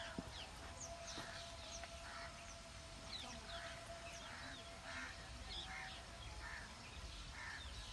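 Birds chirping: many short, high, falling chirps scattered throughout, fairly faint, with a faint steady hum that stops about three seconds in.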